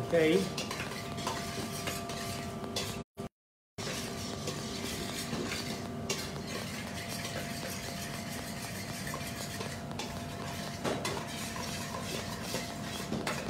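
Metal spoon stirring and scraping a tomato mixture in a stainless steel bowl, with occasional clinks against the side, over a steady background hum. The audio cuts out briefly about three seconds in.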